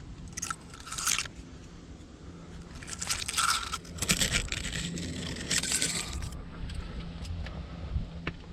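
Rough scraping and crunching against rock in several irregular bursts, with a few sharp clicks near the end.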